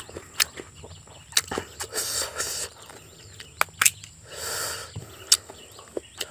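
Close-up sounds of a person eating rice and boiled crab: chewing with a series of sharp, wet mouth smacks and two longer stretches of chewing noise.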